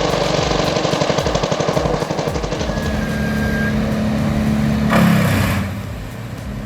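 Home-built engine-driven flywheel log splitter running. A fast, even pounding rhythm gives way to a steadier engine drone, with one loud burst of noise about five seconds in.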